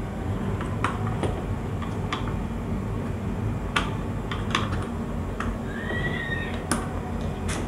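Scattered light clicks and taps of wire ends and a plastic magnetic contactor being handled while terminals are connected, over a steady low background hum. A faint short squeak-like tone about six seconds in.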